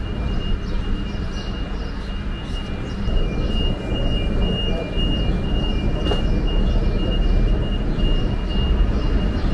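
Traffic ambience at an airport bus area: a steady low rumble of buses and traffic, with a faint high tone pulsing on and off.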